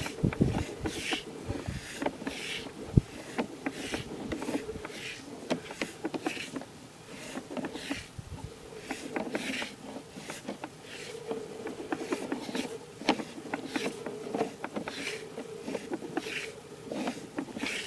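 Sewer inspection camera's push cable being fed down the line: irregular scraping and clicking, over a steady faint hum.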